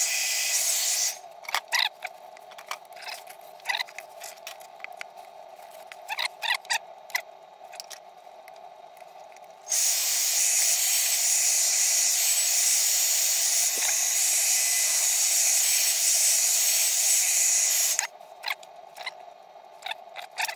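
Handheld hair dryer blowing hot air to set super glue on wooden parts. It runs for about a second, then is switched off and only light clicks and taps of the wooden parts being handled are heard. About ten seconds in it comes back on for about eight seconds, then cuts off again to more taps.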